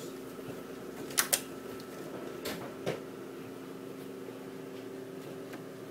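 Light clicks and taps of plates and plastic food trays being handled, two in quick succession about a second in and two more near the middle, over a steady mechanical hum.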